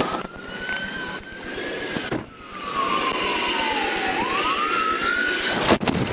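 Steady, loud roaring hiss of natural gas escaping from a ruptured gas line, with a whistling tone over it that slides slowly down in pitch and then back up. Near the end a sharp blast cuts in as the house explodes.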